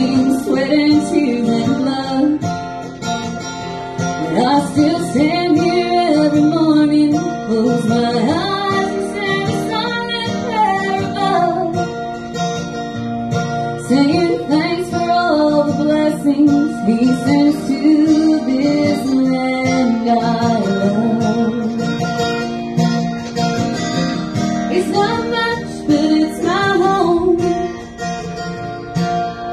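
Live music: a woman singing over her own strummed acoustic guitar, heard through a stage PA.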